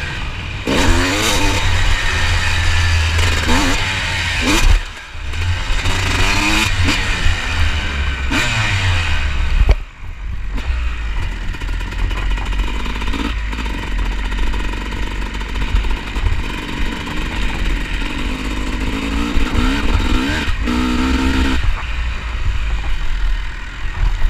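Honda CR250 two-stroke single-cylinder motocross engine heard from on board, revving up and down through the gears. The throttle shuts off briefly twice, about five and ten seconds in, and the engine runs at steadier, lower revs in the second half.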